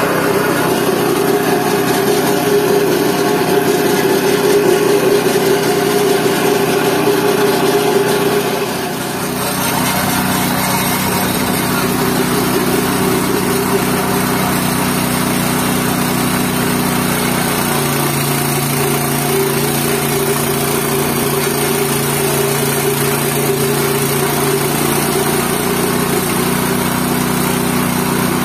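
GT-14 organic-waste pulverizer machine running steadily with a loud motor hum. About nine seconds in the sound dips briefly and changes, and about eighteen seconds in its pitch steps down slightly.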